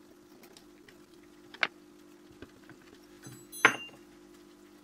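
Small metal tools clicking against the open body of a Canon A-1 film camera during a screwdriver repair. There is a light tap about a second and a half in, then a sharper metallic clink with a brief ring about three and a half seconds in, over a faint steady hum.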